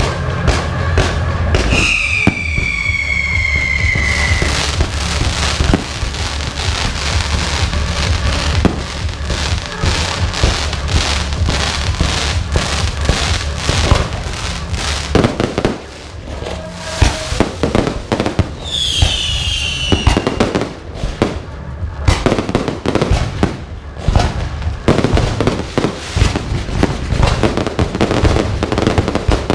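Aerial fireworks going off in rapid, continuous volleys of bangs and crackling. Two whistles fall in pitch, one about two seconds in and another near the twentieth second.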